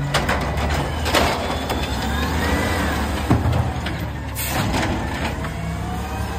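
Automated side-loader garbage truck emptying a recycling cart, its diesel engine running steadily under the hydraulic arm. Several sharp knocks come as the cart is shaken into the hopper and brought back down, the loudest just after three seconds. A faint whine rises and falls midway.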